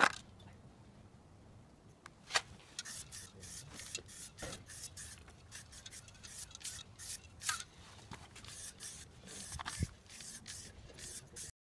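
Aerosol spray-paint can giving a run of short hissing bursts, starting about two seconds in and cutting off suddenly near the end.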